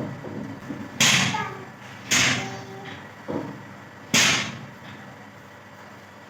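Three sudden, loud bursts of breath through the nose, about a second apart at first, each fading over half a second, with a fainter one between the second and third: a woman's sneeze attempts as she tickles the inside of her nose with a long blade of grass.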